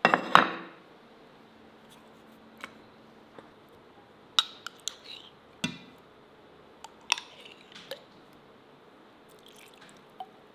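Kitchen handling sounds while seasoning raw minced meat: a brief clatter at the start, then scattered light taps and soft wet clicks as a spoon drops tomato paste into a stainless steel bowl, with one duller knock midway.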